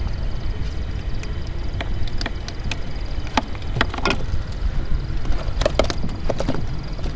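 Scattered light clicks and taps as fishing line and a hook are handled while unhooking a fish in a wooden boat, over a steady low rumble of wind and water.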